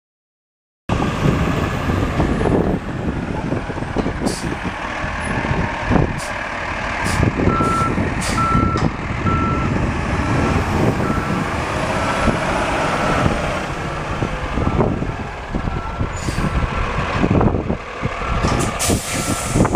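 Diesel refuse truck running, its Cummins ISC 8.3-litre inline-six engine, starting about a second in. From about a third of the way through, a backup alarm beeps steadily, a little more than once a second.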